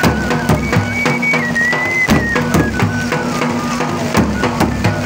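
Himachali Nati folk music: a high wind instrument plays a melody of held, wavering notes over a steady drum beat and a low sustained drone.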